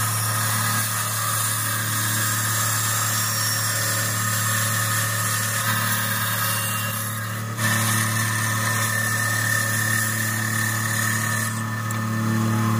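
Benchtop bandsaw running with its blade cutting through a block of pine: a steady motor hum under the hiss of the cut. The sound dips briefly a little past halfway, then carries on.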